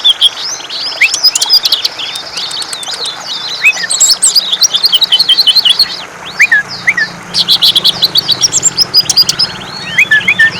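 Green leafbird (cucak ijo) singing hard: a fast, varied stream of sharp chirps and quick rising and falling whistles, broken by rapid trills of repeated notes, with a short lull a little past the middle.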